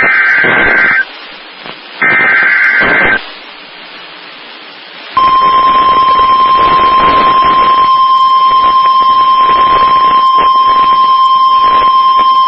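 NOAA Weather Radio Emergency Alert System signal: two raspy digital data bursts of the SAME header, about a second each with radio hiss between them, then about five seconds in the steady 1050 Hz warning alarm tone starts and holds. It is the attention signal that heralds an Amber Alert cancellation message.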